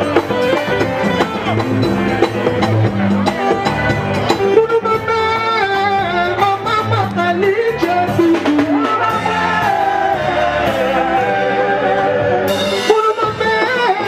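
Music with singing over guitar and a steady drum beat.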